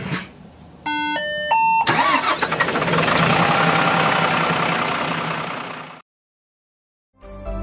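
Intro sound effects: a quick three-note electronic chime, then about four seconds of a loud engine-like rushing rumble that cuts off abruptly. Music starts just before the end.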